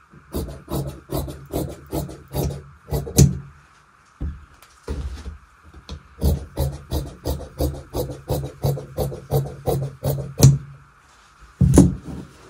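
Tailor's scissors snipping through cotton-silk blouse fabric, cutting the round V back neckline, about three quick snips a second with the blades knocking on the table, a pause near the middle.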